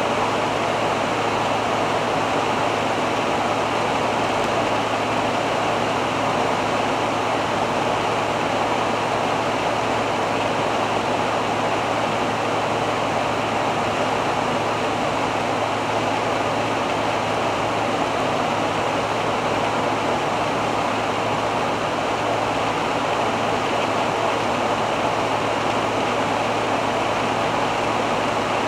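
A 1985 Hobby 600 motorhome on a Fiat Ducato base cruising at about 98 km/h: an even rush of road and wind noise with a steady low hum underneath.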